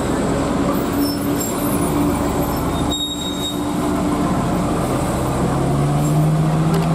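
Mercedes-Benz coach's diesel engine running under load as the bus turns slowly through a tight hairpin bend, a steady drone with a lower engine note coming in about five seconds in.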